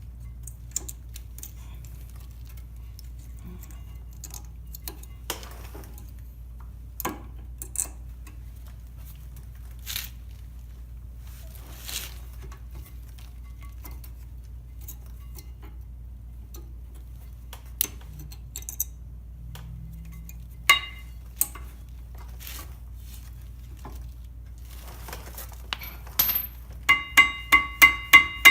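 Scattered metallic clicks and clinks of brake pads and their clips being handled and seated in a caliper mounting bracket, over a faint low hum. Near the end comes a quick run of ringing metal taps, several a second.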